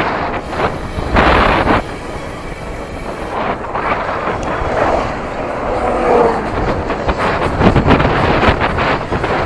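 Wind buffeting the microphone of a camera on a moving bicycle: a loud rushing noise that swells and dips in gusts.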